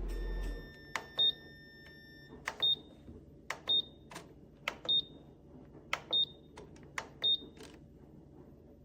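Nuwave Bravo Pro air fryer toaster oven: its steady running noise cuts off about half a second in. A held electronic beep follows, then six short high beeps about a second apart, each with a sharp click.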